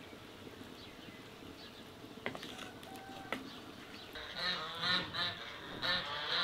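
Quiet outdoor ambience with a couple of faint clicks, then from about four seconds in geese start honking in a rapid series of calls.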